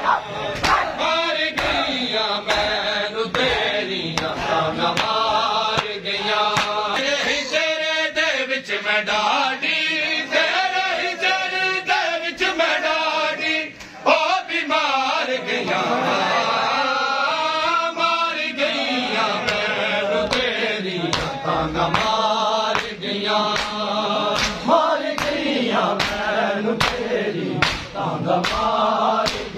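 A group of men chanting a noha, a Shia mourning lament, with sharp rhythmic slaps of chest-beating (matam) keeping time at about one a second.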